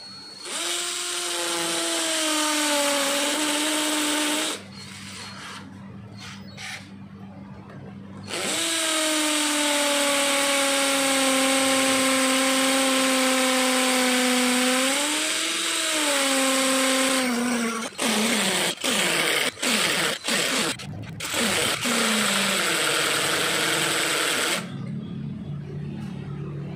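Mailtank 32V brushed-motor cordless hammer drill boring into a concrete wall with a 10 mm masonry bit. The motor whines for about four seconds, stops, then runs for about nine seconds with its pitch drifting under load. It ends with several short trigger blips and a last short run. The owner finds the hammer impacts a little weak but the drilling power strong.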